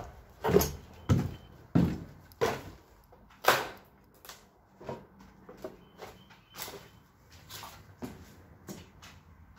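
Footsteps on a debris-strewn floor, a short knock about every half second or so, loudest in the first few seconds and then fainter and more uneven.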